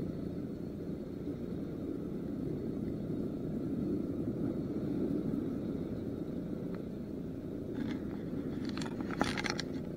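Steady low rush of wind and sea on the breakwater, with a short run of clicks and rustles near the end as hands handle the baited hook and line close to the microphone.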